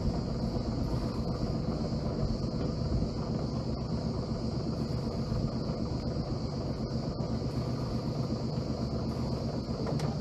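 A sailing yacht's inboard diesel engine running steadily at low revs while the boat is manoeuvred onto its mooring. It makes an even, low hum.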